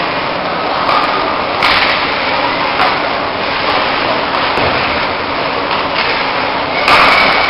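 Ice hockey play in a rink: a steady wash of noise from skates cutting and scraping the ice, echoing in the arena, with louder swells about two seconds in and again near the end.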